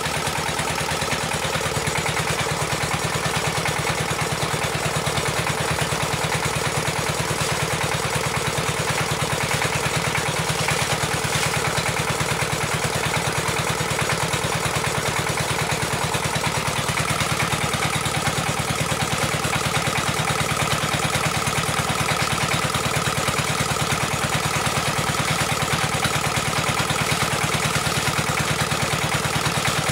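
Engine of the well-drilling rig running steadily, with a fast, even beat.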